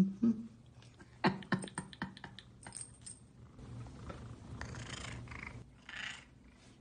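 Domestic cat purring while being scratched under the chin, with a few light clicks about a second in. Near the end a cat gives a short meow, a "mrreow".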